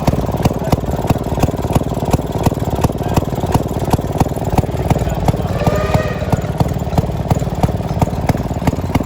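Vintage engine running steadily with an even, regular beat of sharp exhaust knocks over a low rumble. A brief voice-like call cuts through about halfway in.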